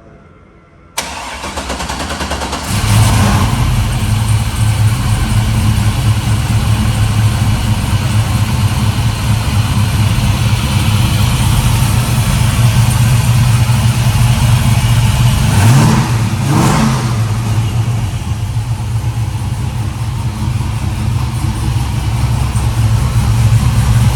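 A 1970 Camaro's 5.7 LS1 V8, with ported heads, a mild Brian Tooley Racing cam and a 3-inch stainless exhaust, is cranked about a second in and catches near three seconds. It then idles steadily and is revved twice in quick succession about sixteen seconds in before settling back to idle.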